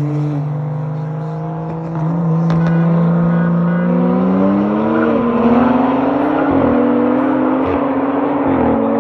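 Car engine revving hard, its pitch climbing slowly and then rising and dropping several times in the second half.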